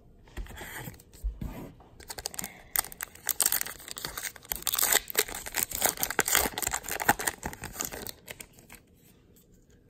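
A baseball card pack's wrapper being torn open and peeled back by hand, a dense crinkling and tearing from about two seconds in until near the end. It is preceded by light rustling and knocks as the pack is lifted out of the box.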